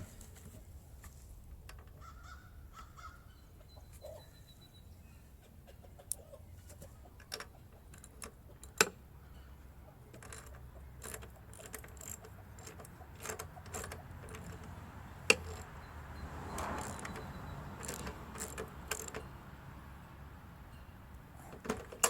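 Sparse metallic clicks and clinks of hand tools being handled, with a faint low hum underneath and a brief rush of noise a little past the middle.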